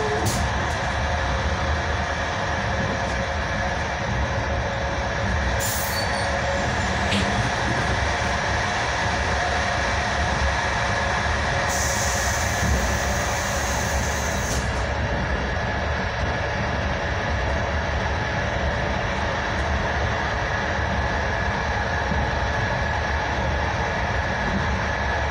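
Inside a moving passenger train carriage: the steady rumble of the wheels running on the rails, with a faint steady high whine. A short hiss rises over it about halfway through.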